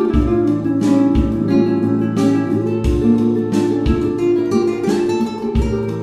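Background music: plucked acoustic guitar over a steady beat.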